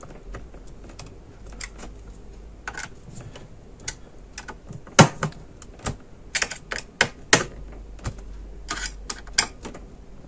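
Irregular sharp clicks and taps of a laptop's copper heatpipe cooler and fan being fitted back onto the motherboard by hand. The loudest knock comes about five seconds in, with quick runs of clicks a second or two later and again near the end.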